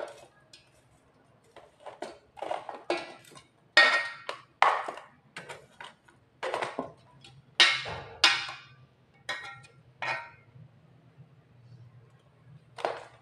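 A stainless-steel spoon scooping chopped raw meat from a plastic tub into a steel chopper bowl: irregular knocks and clinks of spoon on plastic and metal, about a dozen, with a faint low hum underneath.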